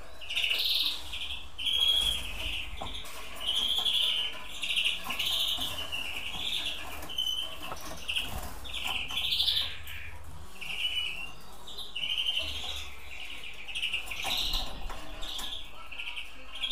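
European greenfinches calling, a steady run of short, repeated chirps.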